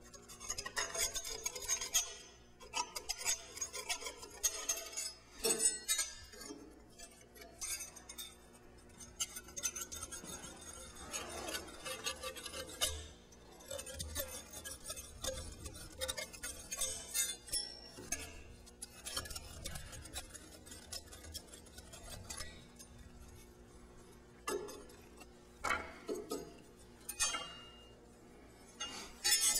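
Hand deburring tool scraping the raised burrs from drilled holes in thin aluminium sheet, with irregular light metallic clinks and rattles as the sheet is turned and shifted on the steel drill-press table.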